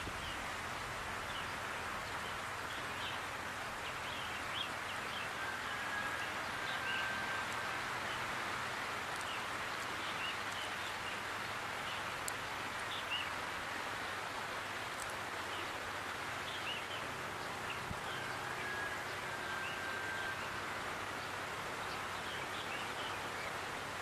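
Steady outdoor background noise, like wind and rustling, with scattered small bird chirps throughout. Twice, a clear whistled bird call: a short note followed by a longer held one.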